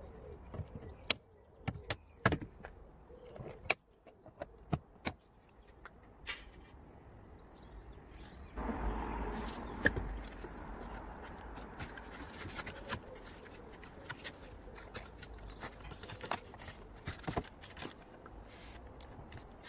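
Sharp clicks and knocks of rigid plastic as the grille and clip-on trim of a car's front bumper are handled, thickest in the first several seconds. From about eight and a half seconds in, a steady rushing noise comes in under the clicks.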